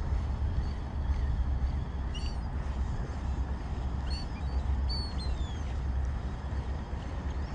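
A few short, high bird calls, some falling in pitch, about two, four and five seconds in, over a steady low rumble.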